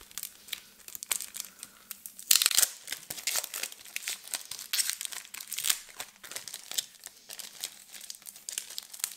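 Clear plastic crinkling and rustling as a clear plastic notebook cover and its packaging are handled, with the loudest rustle about two and a half seconds in.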